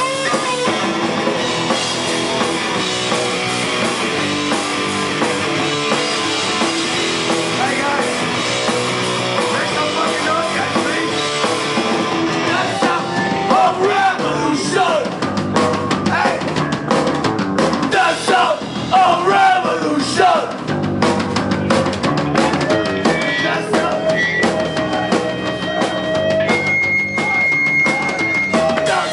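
Rock band playing live: distorted electric guitars over a drum kit, loud and continuous.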